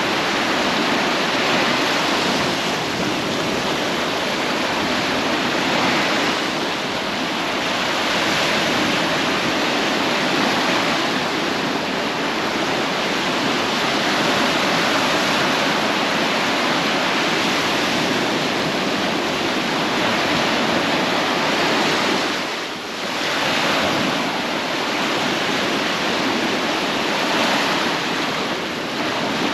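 Sea waves breaking on a beach: a continuous rush of surf that swells every few seconds, with a brief lull about three-quarters of the way through.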